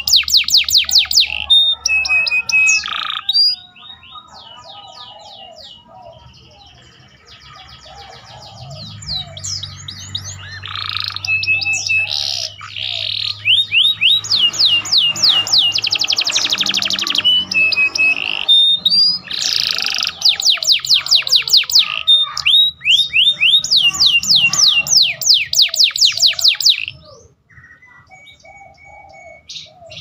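Domestic canary singing in loud bouts of very rapid trills and fast repeated sweeping notes, its song filled with imitated bar-winged prinia (ciblek) phrases. The song drops to quieter twittering between about four and nine seconds in, then stops near the end.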